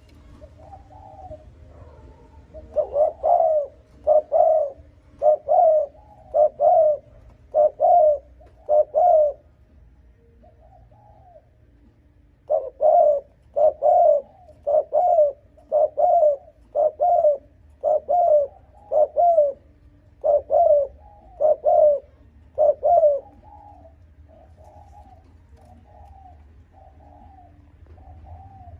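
Spotted dove cooing in rapid 'gù' calls: a run of about half a dozen loud coos roughly one a second, a pause of a few seconds, then about ten more, trailing off into softer, quieter coos near the end.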